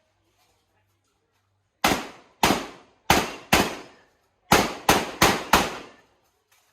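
Shotgun fired eight times in practical shooting: four shots about half a second apart, a short pause, then four faster shots, each bang ringing out briefly.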